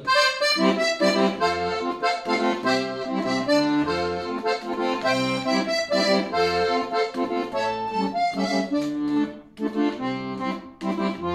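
Piano accordion (D'Angelico) playing a Bolivian Todos Santos tune: a right-hand melody over left-hand bass notes on C alternating with chords.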